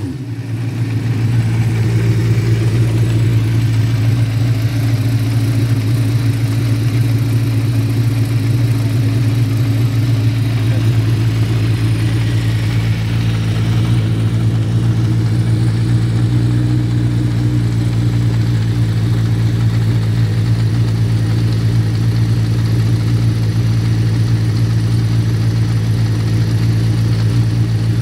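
Idling of a 2013 Radical SR8's 2.7-litre Hayabusa-based V8, held at a steady idle while warming up and nearly at operating temperature.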